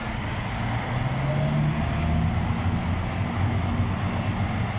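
Diesel coach bus engine running as the bus ploughs through deep floodwater, its pitch rising a little over a second in, with a steady rushing noise behind it.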